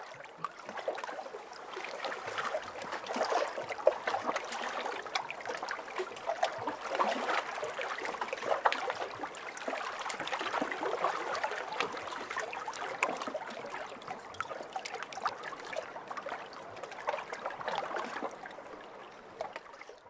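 Gentle water lapping and trickling: a steady wash dotted with many small irregular splashes, rising in over the first couple of seconds.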